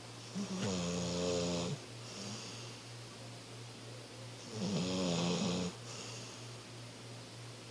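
Snoring: two drawn-out snores about four seconds apart, each followed by a softer breath out, over a steady low hum.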